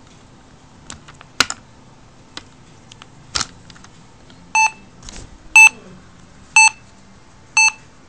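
The speaker of a homemade Arduino-driven infrared tag rifle giving four short, loud, buzzy electronic beeps, one a second. Before the beeps come a few light clicks and knocks of the rifle being handled.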